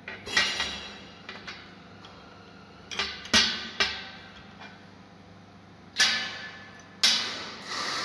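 A series of sharp metal clanks, each ringing briefly, as a steel bar clamp is loosened and removed from a stainless steel bracket and the parts knock against a steel worktable.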